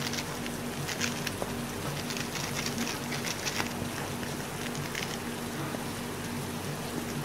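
A plastic instant-noodle seasoning sachet crinkling and tearing in the hands, in several short spells of crackling, over the steady hiss of rain.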